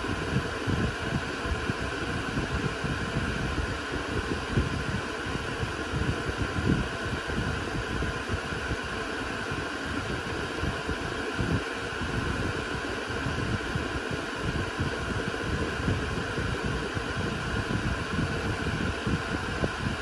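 Cooling fans of a Dell Compellent SCV2020 storage array running steadily: a constant rush of air with faint steady tones over an uneven low rumble.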